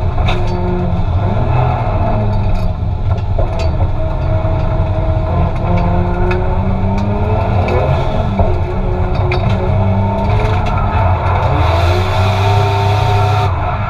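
Turbocharged Toyota 2JZ straight-six in a Nissan Silvia S15, heard from inside the cabin, revving up and down at full throttle through a drift, its pitch rising and falling several times.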